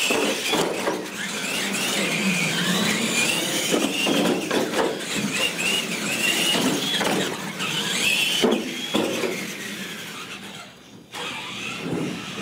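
Brushed electric motors and drivetrains of two radio-controlled monster trucks racing, whining with a pitch that rises and falls as the throttles are worked. The sound dies down about ten seconds in, with a short burst near the end.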